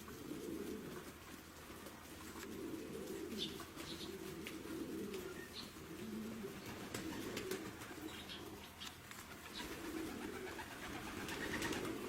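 Birds cooing in repeated low pigeon-like phrases of about a second each, with a few short high chirps between them.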